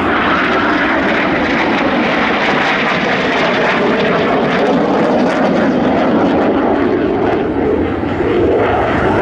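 Jet engine noise from the Turkish Stars' Canadair NF-5 fighters flying overhead: a loud, steady rush that dips briefly near the end.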